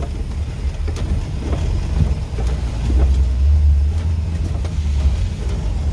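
Maruti Suzuki Gypsy King driving on a wet road, heard from inside the cabin: a steady low engine and road rumble that swells slightly midway, with a few light clicks.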